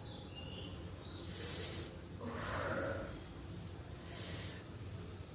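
A woman's heavy breaths: three hissing rushes of air about a second and a half apart, her reaction to the burn of very spicy food.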